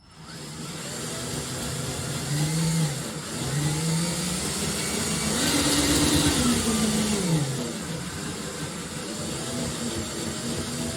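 Shake table motor running, its pitch rising and falling as the speed changes, highest about halfway through and then dropping.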